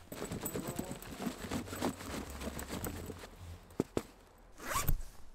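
Nylon fabric and padding rustling and scraping as a padded camera insert is wrestled out of a backpack's main compartment, followed by two sharp clicks and a last short rustle.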